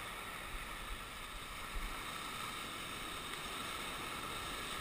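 Steady wash of sea surf breaking and foaming over shoreline rocks, with a few brief low thumps of wind on the microphone.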